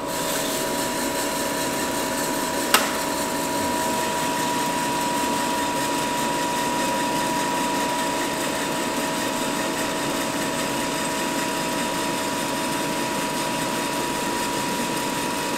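Electric sample coffee roaster (ROEST) running mid-roast: a steady fan whir with a constant hum. One sharp click about three seconds in.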